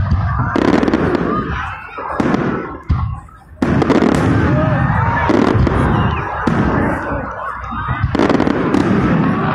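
Aerial fireworks shells bursting in a string of sharp bangs. There is a brief lull about three seconds in, then a sudden, dense barrage of bursts.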